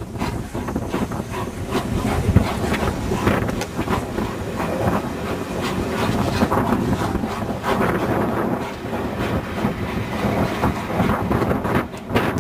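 Steam-hauled passenger train behind A1 Pacific locomotive 60163 Tornado on the move, its wheels clattering over the rail joints in a continuous run of clicks and rumble.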